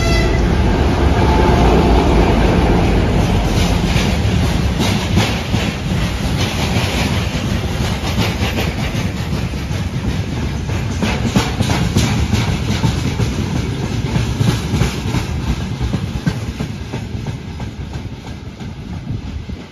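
Freight train passing close by, hauled by a diesel hood-unit locomotive whose engine is loudest in the first couple of seconds. A long run of loaded hopper wagons and gondola cars follows, their wheels clacking over the rail joints. The sound eases slowly as the train goes by.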